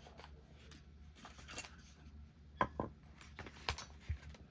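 Small metal lock tools clicking and tapping as they are handled, a scattering of light clicks in several short clusters.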